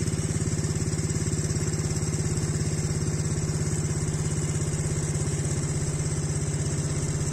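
An engine idling steadily, with an even pulsing beat and no change in speed.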